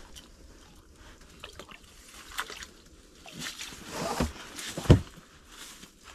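Lake whitefish being landed through an ice-fishing hole: faint water splashing at the hole, then the fish flopping on the snowy ice with a few dull thumps, the loudest about five seconds in.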